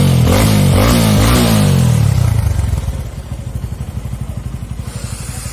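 TVS Apache 200's single-cylinder engine revved in several quick blips through a stainless-steel full-system aftermarket exhaust, then dropping back to a steady, pulsing idle about two and a half seconds in.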